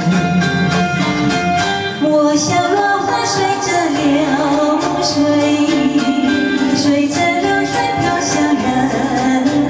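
A woman singing a song with held, gliding notes over an accompaniment with a steady beat.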